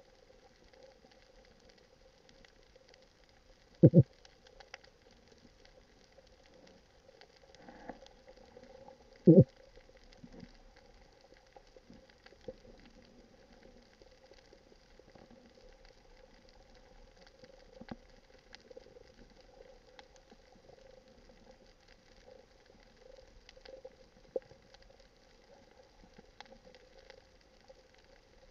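Underwater ambience heard through a diving camera: faint scattered crackling clicks over a steady low hum, with two loud sharp knocks, one about four seconds in and another about five seconds later.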